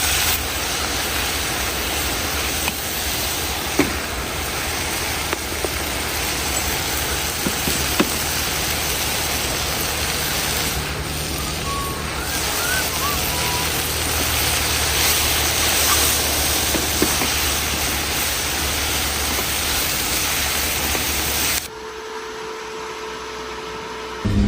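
Steady hiss of food stir-frying in a pan, with a few light clicks of the utensil against it. It cuts off suddenly near the end to a quieter, steady hum.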